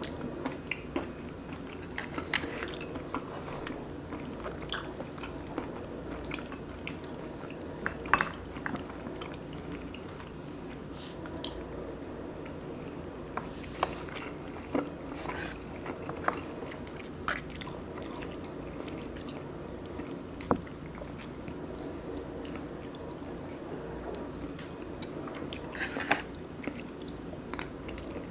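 A person eating braised kimchi with thick pork belly and rice, close to the microphone: chewing and biting, with scattered sharp clicks of a spoon or chopsticks against the dishes, over a steady low hum.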